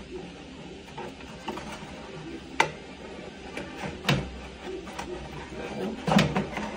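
Cardboard packing inserts being pulled out from inside a 3D printer's plastic enclosure: scraping and rustling handling noise with three sharp knocks spread through.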